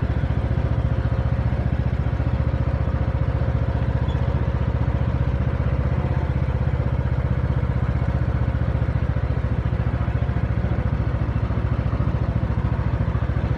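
Riding lawnmower's engine running at a steady pace as the mower is driven along, with a steady whine over the engine's rapid pulsing.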